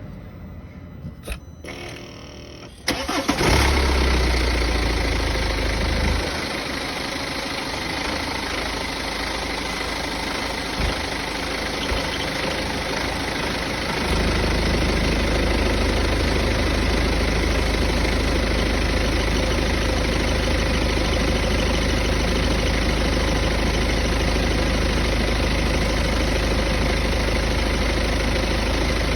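A vehicle engine is started about three seconds in after a few clicks, then idles. About fourteen seconds in, a louder, deeper droning vibration sets in and holds steady. This is the vibration noise the owner reports hearing once the vehicle has been driven for a while.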